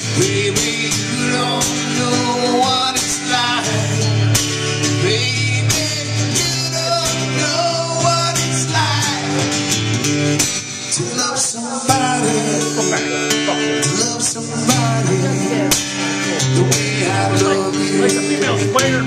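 Acoustic guitar strummed with a man singing into a microphone: a live song played through the bar's PA.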